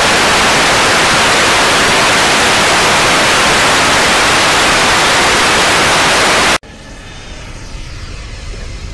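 Loud, even radio static hiss that cuts off suddenly about six and a half seconds in. A much quieter low, rumbling drone follows.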